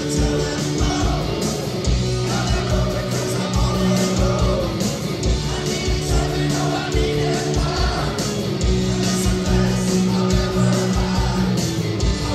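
Live rock band playing loud: a singer over electric guitars, bass guitar and a driving drum beat.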